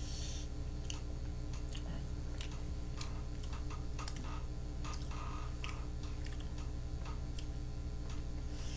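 Scattered soft clicks and ticks at an uneven pace over a steady low hum.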